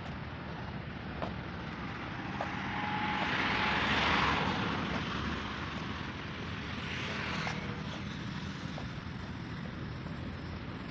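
A steady engine drone that swells as it passes, loudest about four seconds in, then fades, with a smaller swell a few seconds later.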